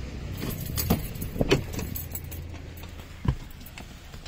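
Keys jangling, with several knocks and clicks from a person getting into a car, and a single dull thump about three seconds in.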